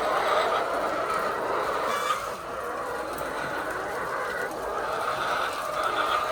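Continuous din of a large flock of laying hens clucking and calling in a poultry house, with one short click about two seconds in.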